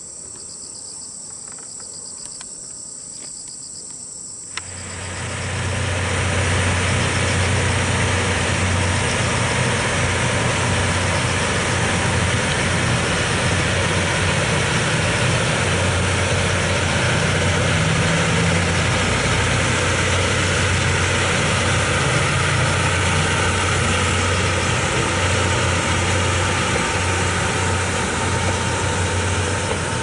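Insects chirping, then about four and a half seconds in an electric locomotive hauling passenger coaches comes by close, with a steady low hum over the rumble of wheels on rail that lasts to the end.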